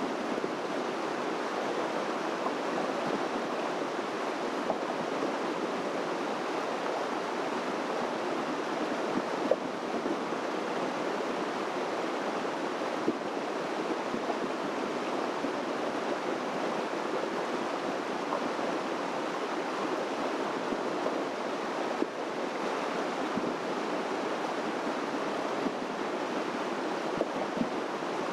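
Steady rushing of running creek water, an even, unbroken wash of noise, with a few faint clicks.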